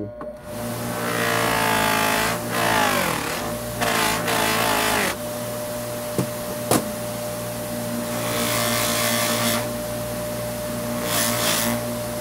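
Bench buffer with loose-leaf cotton buffing wheels, its motor running up to speed over the first second or two and then running steadily with a hum. A bar of blue polishing compound pressed against the spinning wheel to charge it adds louder hiss in several stretches, and a single sharp click sounds about seven seconds in.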